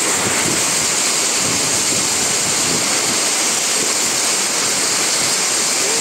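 Heavy downpour: rain pouring with a steady, even hiss.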